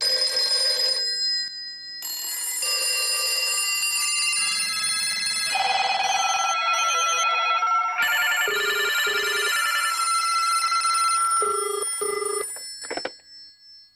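Electronic telephone-like ringing and tones: several steady pitches layered and changing every second or so, with trilling ring tones from about six seconds in and short repeated beeps near the end. Starts abruptly and fades out just before the end.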